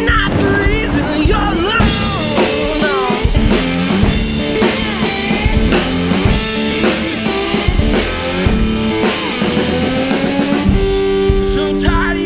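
Blues-rock band music: electric guitar with bending, sustained notes over a drum kit.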